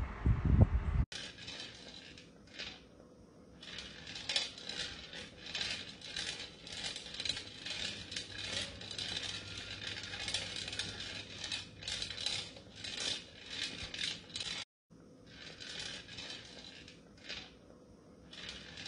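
A hedgehog running in a plastic exercise wheel, with a fast, uneven clicking and rattling of the spinning wheel and claws on plastic. About a second in it starts after a brief low rumble, and it breaks off for a moment about three quarters through.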